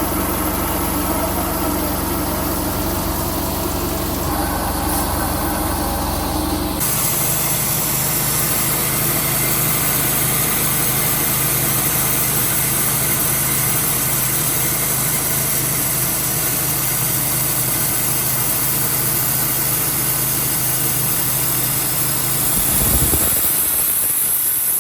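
Sawmill engine running steadily. About seven seconds in the sound changes abruptly, with more hiss in the highs and less low rumble, and it shifts again just before the end.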